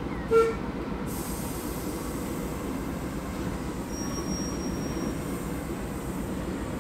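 Class 08 diesel shunter running slowly along the track, its engine a steady low rumble. A short loud tonal blip comes just after the start, and a thin high squeal lasts about a second midway, typical of wheel flanges on the rail.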